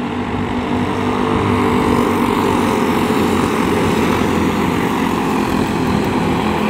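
A pack of racing motorcycles passing at speed, their engines running loud together and swelling about a second or two in.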